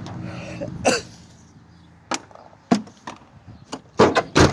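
A handful of short, sharp sounds at irregular intervals, the two loudest close together near the end, over a low steady hum that fades away during the first second.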